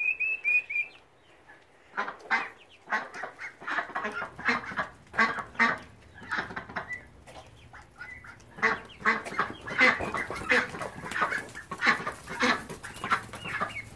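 Ducks quacking over and over in short calls close together, with a brief run of high peeps at the very start.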